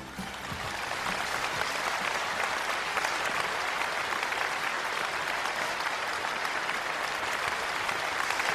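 Crowd applauding, a dense crackle of clapping that swells over the first second and then holds.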